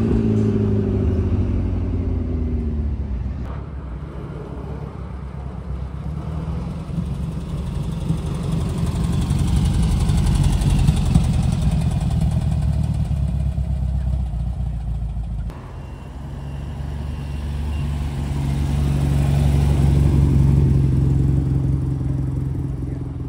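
Cars driving away slowly one after another. First a McLaren supercar's engine falls in pitch and fades as it pulls away. Then the air-cooled engine of a split-screen Volkswagen Type 2 bus builds as it passes, and a vintage roadster's engine runs with a steady low note as it drives off.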